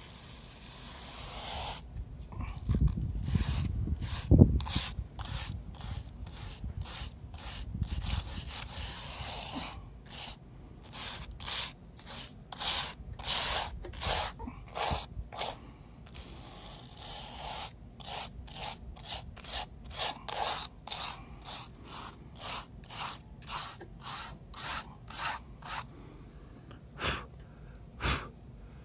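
A wire brush scrubbing back and forth in a rotten siding joint, scraping out crumbled, decayed material. The scraping is almost continuous at first, then settles into regular strokes at about two a second that stop near the end.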